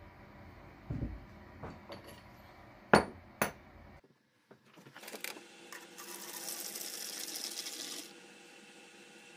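A few sharp knocks and clicks of hard objects handled on a workbench, then liquid poured from a plastic jug into a plastic bucket: a steady splashing hiss for about two seconds that stops near the end.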